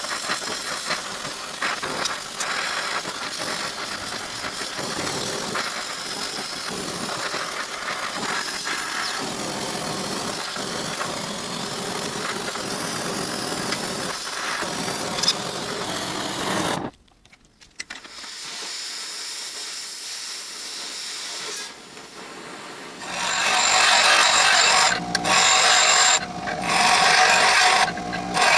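A handheld gas torch's flame hissing steadily. About two-thirds of the way through, after a sudden break, a bench grinder runs and then grinds a piece of steel, louder and harsher, with several brief breaks as the steel comes off the wheel.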